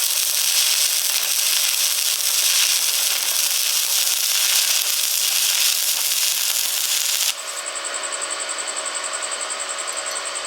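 Stick-welding arc crackling and hissing steadily. About seven seconds in it cuts off abruptly, giving way to a quieter, evenly pulsing sound with a steady high tone.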